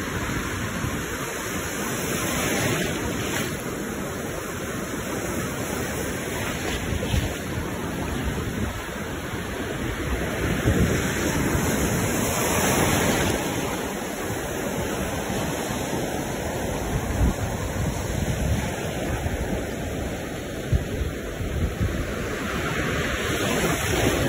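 Ocean surf in the shallows: small waves breaking and foam washing in, a steady rushing that swells and eases every ten seconds or so.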